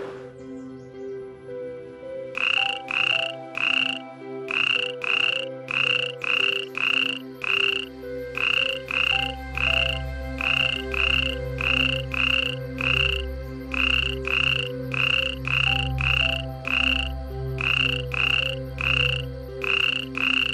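A frog calling in a regular series of short croaks, about two a second, starting about two seconds in, over steady low background tones.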